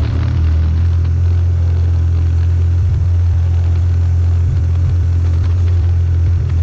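Vehicle engine running steadily under load while climbing a steep gravel road, a constant low rumble.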